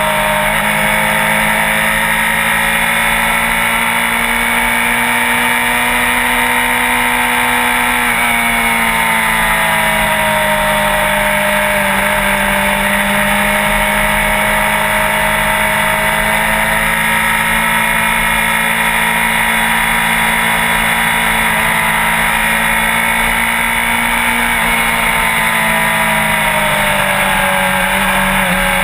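Sport bike engine running steadily at cruising speed, its pitch drifting slowly up and down with the throttle and easing off a little at about eight seconds and again near the end.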